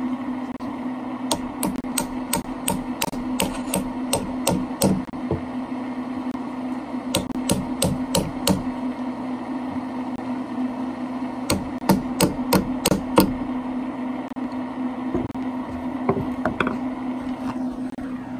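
Claw hammer striking pliers that grip a stainless steel cable railing end fitting, driving it through the hole in a wooden deck post. It comes in three runs of quick metal-on-metal taps, about three a second, over the steady hum of a running Traeger pellet grill.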